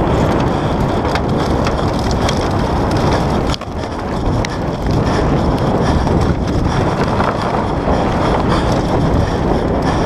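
Wind rushing over a GoPro microphone together with a downhill mountain bike's tyres rumbling over rough grass and dirt at racing speed. A sharp knock about three and a half seconds in, followed by a moment's dip in level.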